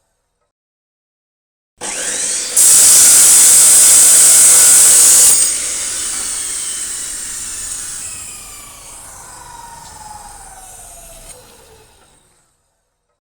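A Bosch electric power tool spinning up and cutting steel with a loud, high-pitched hiss for about three seconds. The cut then stops and the tool winds down with a long falling whine that fades out.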